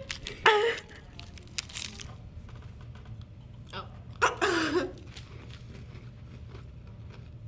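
Crunching and wrapper crinkling as a Nature Valley Crunchy granola bar is handled and bitten, in short scattered crackles.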